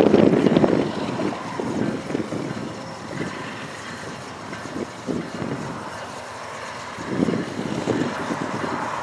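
Wind buffeting the microphone in gusts, strongest at the start and again near the end, over the distant rumble of an approaching freight train led by a GE ES44AC diesel locomotive.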